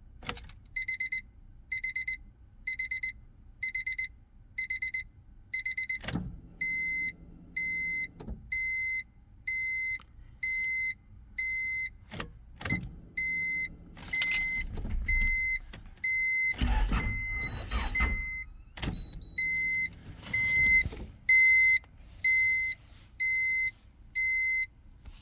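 An electronic beeper sounding a high beep about once a second, choppy at first and then smooth, with knocks, clicks and low rumbles in between.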